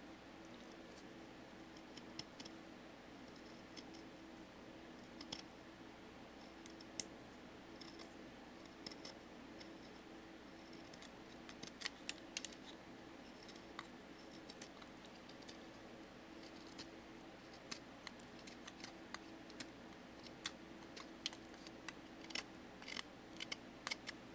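Scattered light clicks and taps as small tools and knives are handled and set down on a tabletop, over a faint steady room hum.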